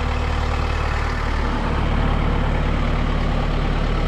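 Kubota M6060 tractor's diesel engine running steadily, with a brief low shift in its note about a second and a half in.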